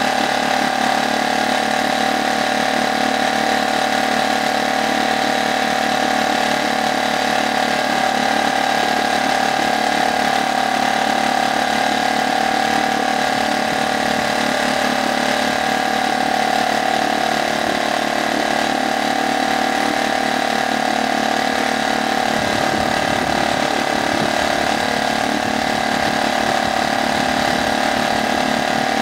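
HDX F 2.6 BMS four-stroke outboard motor running steadily in a water test barrel, newly started for only the second time. The low rumble thickens slightly about three-quarters of the way through.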